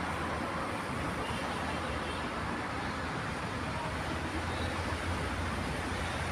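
Steady rumble and rush of vehicle noise, even throughout, with a low hum underneath.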